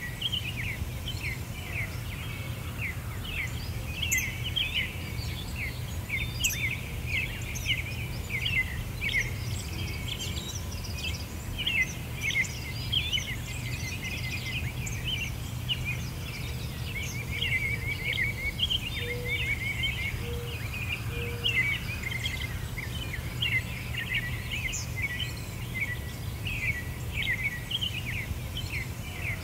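Many small birds chirping and twittering without a break, over a steady low hum.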